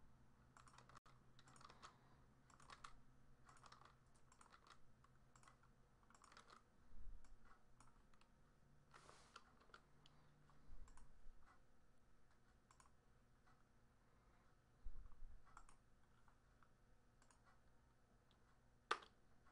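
Faint computer keyboard typing and mouse clicks: scattered keystrokes, with a sharper click near the end.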